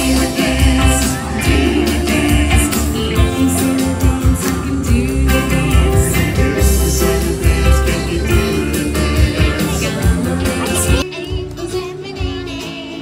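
Live band music with singing played through an outdoor concert sound system, with guitar and a steady heavy bass beat. About eleven seconds in it becomes quieter and thinner.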